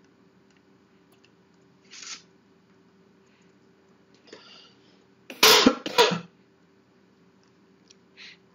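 A person coughing twice in quick succession about five and a half seconds in, with a few shorter, quieter noises before and after.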